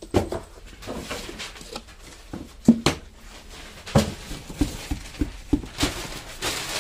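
Irregular knocks and taps, with soft rustling between them, from hands working cardboard firework tubes and loose powder; the loudest knocks come about a third of the way in and just after the middle.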